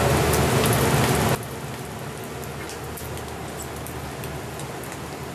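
Skewered eel fillets sizzling over a charcoal grill, with scattered crackles and pops from the coals. The sizzle drops suddenly to a quieter level a little over a second in.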